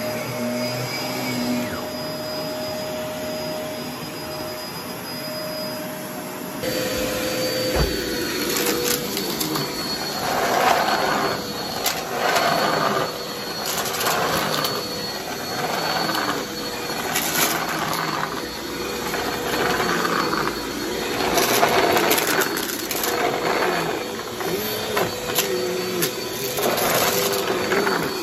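Cordless stick vacuum running with a steady motor whine. About six and a half seconds in the sound changes: the vacuum is pushed back and forth over carpet strewn with debris, surging about once a second with each stroke, as pull tabs and bits of lint rattle up into it.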